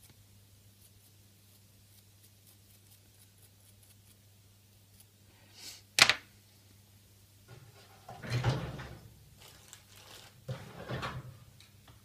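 Small handling sounds of a rotary tattoo machine's motor being worked on: a sharp click about six seconds in, then two spells of rubbing and rustling as a tissue wipes the small motor.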